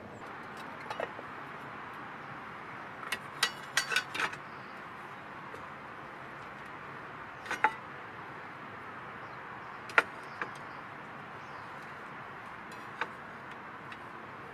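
Cooking sounds: a steady hiss with sharp clinks and knocks of utensils. A quick cluster of clinks comes a few seconds in, then single knocks at spaced intervals, the loudest about two-thirds of the way through.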